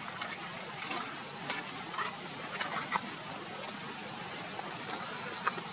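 Steady outdoor background hiss with a few faint, short clicks and squeaks scattered through it.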